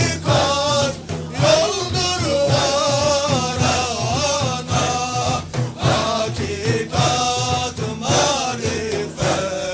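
Sufi zikr (dhikr) of the Naqshbandi order: men's voices chanting together in an ornamented melody that glides and wavers, over a steady, repeating low pulse.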